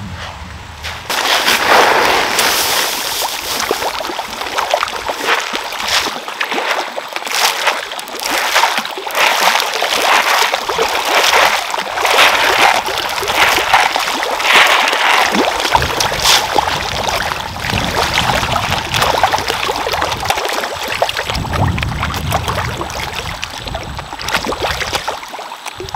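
Pond fish splashing and churning at the surface as they snatch floating feed pellets: a dense run of quick splashes that starts about a second in and keeps going.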